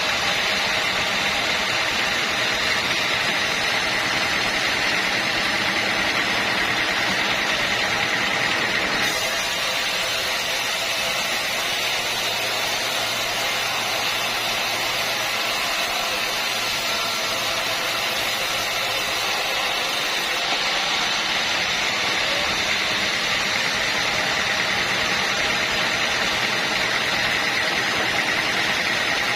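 Sawmill machinery running steadily. The tone brightens about a third of the way in and settles back about two-thirds through.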